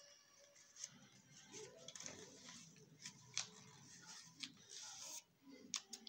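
Faint rustling and crackling of a sheet of notebook paper being folded and creased by hand, with a few soft crackles and taps scattered through.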